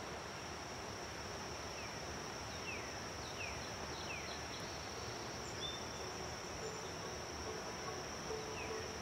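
A steady high insect trill over a soft hiss, joined from about two and a half seconds in by a run of short falling chirps. Faint low musical notes come in near the end.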